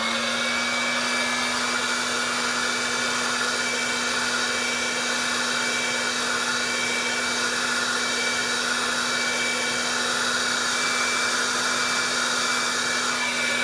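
Handheld electric heat gun running steadily, its fan motor giving a constant hum under the rush of hot air, as it warms a suspect chip on a circuit board to bring back a heat-sensitive fault. The motor begins to wind down at the very end.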